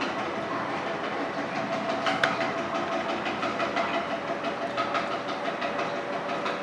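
Potter's wheel spinning: a steady rattling rumble with fast, fine clicking and a faint steady hum, and a single sharp knock about two seconds in.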